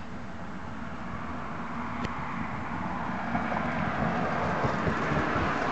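A vehicle driving past, its road and engine noise growing steadily louder and peaking near the end. A single faint click about two seconds in.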